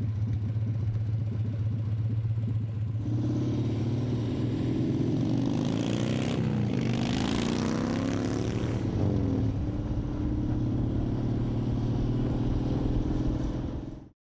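V-twin motorcycle engine running steadily, growing louder about three seconds in as the bike rides off. Its pitch rises and falls as it passes by in the middle of the stretch, and the sound cuts off suddenly near the end.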